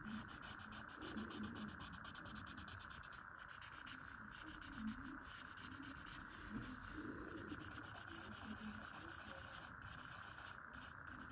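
Drawing tool scratching on paper in quick, repeated back-and-forth strokes, as in hatching or shading, with a few short pauses.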